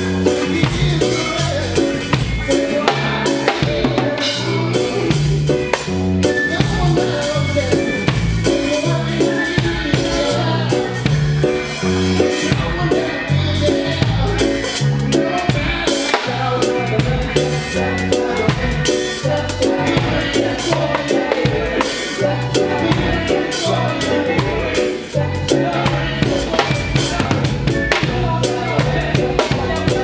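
Drum kit played with sticks, close up: snare with rimshots, bass drum and Zildjian cymbals driving a steady groove over a live band with electric guitar and bass.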